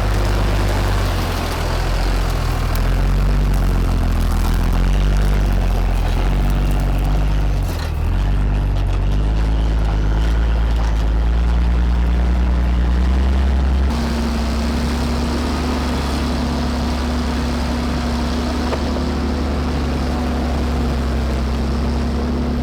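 Cummins diesel engine of a Ram 5500 off-road wrecker running under load as the truck crawls over rough terrain, its pitch rising and falling. About two-thirds of the way through, the sound changes abruptly to a steadier engine note.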